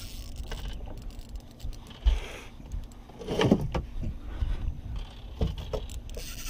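Handling noise on a small fishing boat while a hooked fish is brought to the landing net: knocks and scrapes of gear against the boat with wind rumbling on the microphone, a sharp thump about two seconds in and a louder rush of noise about three and a half seconds in.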